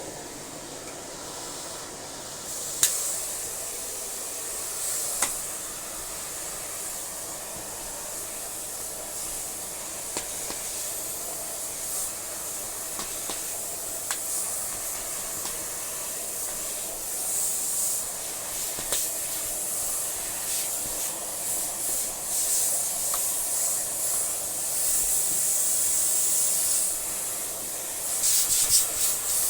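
Dyson upright vacuum cleaner running: a steady rushing hiss of suction with scattered sharp clicks and rubbing, growing louder in the second half.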